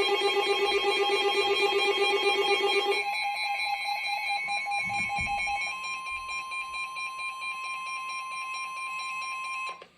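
Emergency alert tones ahead of a tornado warning: a rapidly pulsing, buzzy alarm for about three seconds, then a steady attention tone that cuts off just before the end.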